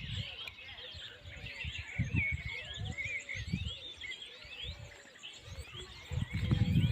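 Several birds chirping and singing, a steady run of quick rising and falling whistled notes, with a few low thuds underneath.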